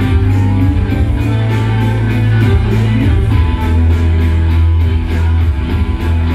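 Indie rock band playing live: strummed electric guitar over a bass line and a steady drum beat, the bass note changing about halfway through.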